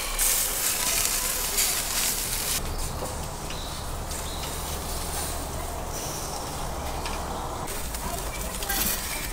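Beef skewers sizzling over a charcoal grill: a steady hiss that drops away suddenly about two and a half seconds in, leaving a low rumble, and comes back just before the end.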